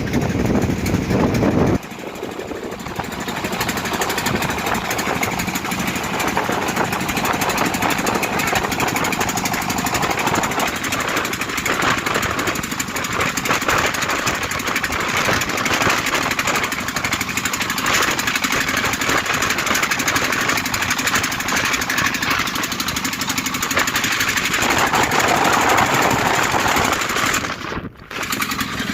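Boat engine running steadily with a rapid, rattling beat. The sound changes abruptly about two seconds in and dips briefly near the end.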